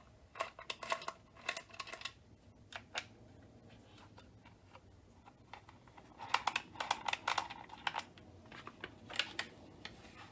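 Light clicking and clattering of polymer rifle-stock parts and tools being handled during disassembly of a Magpul Hunter stock. The clicks come in quick flurries, one shortly after the start and a longer one past the middle.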